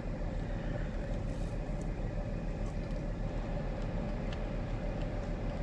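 Steady low rumble of a car's cabin with the engine idling, with a constant hum and a few faint small ticks.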